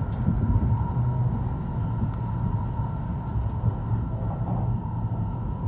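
Steady rumble of a Shinkansen train running at speed, heard inside the carriage, with a faint steady whine above it.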